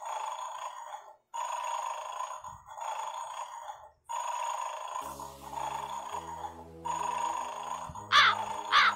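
Electronic ringing tone in repeated pulses of about a second each, with short gaps between them. About five seconds in, a low melodic line joins it, and near the end three springy 'boing' glides rise and fall, louder than the rest.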